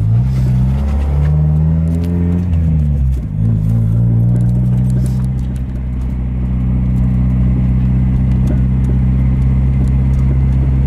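Mazda Miata's four-cylinder engine heard from inside the cabin while driving. The pitch rises and falls over the first three seconds, dips briefly, then holds steady at cruising speed.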